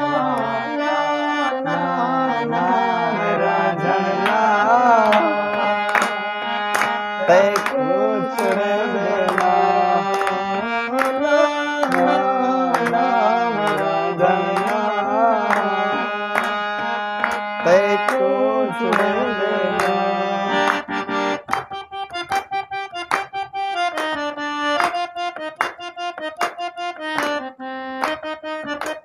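Harmonium playing an instrumental melody over tabla strokes. About 21 seconds in, the held notes give way to short, choppy notes.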